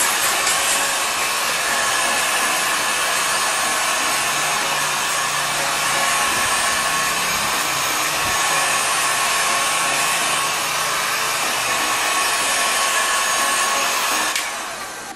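Hot air gun running steadily, a loud rush of air with a faint steady whine, as it shrinks PVC heat-shrink wrap. The sound falls away sharply near the end.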